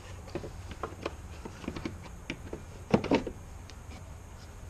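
Plastic air filter housing being pressed into place by hand: scattered light plastic clicks and knocks, with one louder knock about three seconds in.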